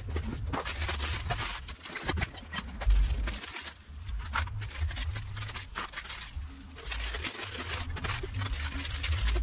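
Plastic wrapping and bags crinkling and rustling as packaged parts are unwrapped and handled, with cardboard box handling and a few dull thumps on the workbench.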